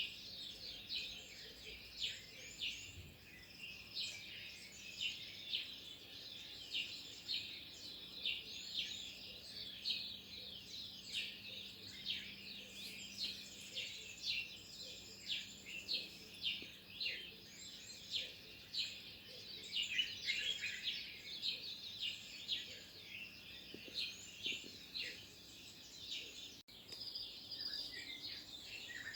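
Small birds chirping in a dense chorus: many short, high chirps overlapping, several each second, with a brief dropout near the end.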